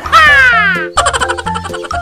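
Playful background music with a cartoon sound effect: a pitch sliding steadily downward for most of a second, followed by quick repeated short notes.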